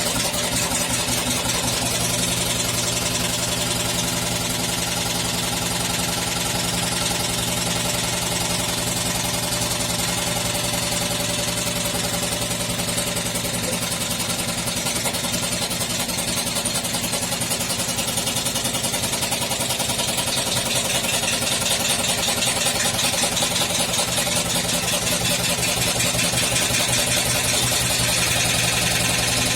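Washing machine spinning, its drum drive humming steadily under a fast, steady knocking and rattling that grows a little louder about two-thirds of the way through. The owner traced this knocking on spin to a broken drum spider (the cross-shaped shaft mount) inside the drum, after new bearings and reworked shock absorbers did not cure it.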